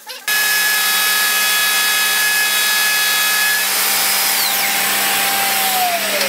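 Plunge router running at full speed with a steady high whine, trimming the edge of a cast Jesmonite panel. Near the end it is switched off, and its pitch falls as the motor spins down.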